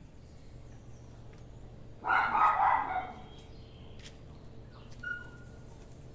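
A dog barking, a short run of barks lasting about a second, starting about two seconds in.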